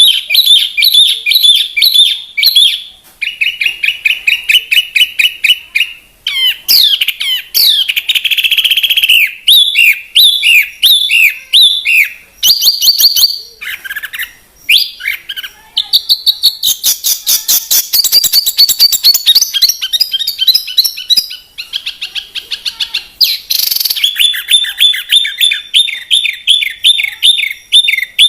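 A songbird singing a long, varied song of rapid repeated chirps and fast trills, the phrase changing every second or two with only brief pauses. This is a masteran recording, bird song used to teach caged songbirds.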